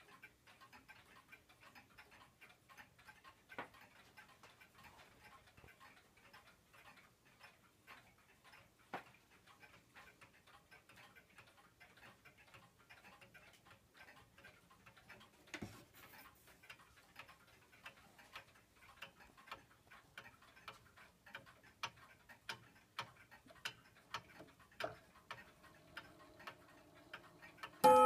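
Old pendulum regulator wall clock ticking steadily, the ticks faint and growing louder toward the end, with a few louder knocks among them.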